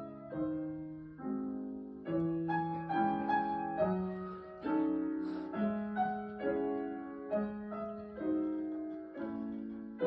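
Piano playing a slow, lyrical passage: single notes and chords struck about once or twice a second, each ringing and dying away.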